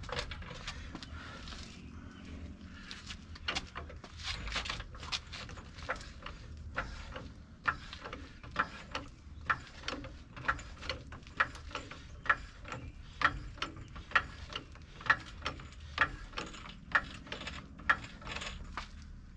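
Clatter and knocks of tools being handled, then a steady run of sharp mechanical clicks, about one a second for some ten seconds, from a hand tool being worked stroke by stroke on the truck.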